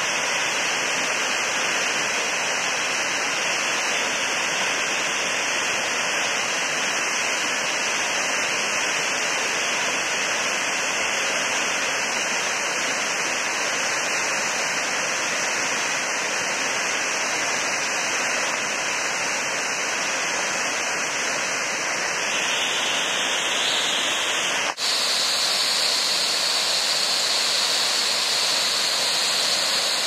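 Sombrun waterfall's water falling and rushing steadily, at its lower dry-season flow. A momentary break about three-quarters of the way through, after which the rush sounds slightly brighter.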